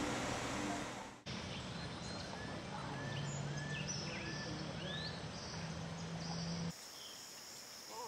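Keel-billed toucan calling a series of short arched notes, about two a second, over forest background noise and a steady low hum. The background changes abruptly about a second in.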